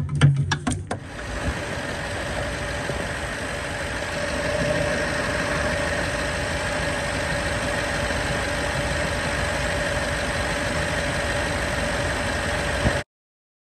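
Ford 5.4-litre V8 engine idling steadily, driving a freshly installed serpentine belt and its pulleys, with a faint steady whine; a few sharp clicks come just before it, and the sound cuts off suddenly near the end.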